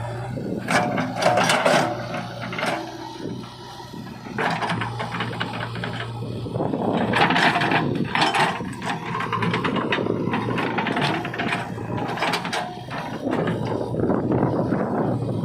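JCB 3DX backhoe loader's diesel engine running steadily, with several loud scraping and clanking bursts from the digging work as the bucket and arm move.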